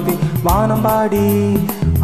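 Karaoke backing track of a Tamil film song playing an instrumental passage: melody lines that slide and step in pitch over a fast, even percussion tick.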